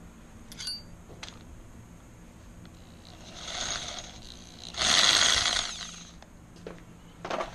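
Power drill spinning a bicycle's rear wheel by its axle: a whir that builds about three seconds in, is loudest for about a second, then dies away, with a few light metal clicks before it. The wheel is spun to check the newly mounted motor-kit sprocket for wobble.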